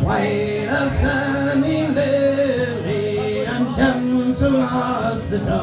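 Live pub music: a man singing in long, held notes to a guitar accompaniment.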